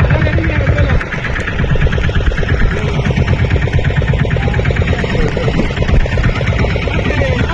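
Fishing boat's motor running steadily, with a rapid, even pulse and a heavy low rumble.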